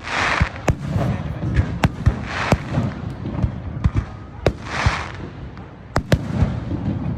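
Fireworks going off: an irregular run of sharp bangs, some close together, with three short rushes of noise between them.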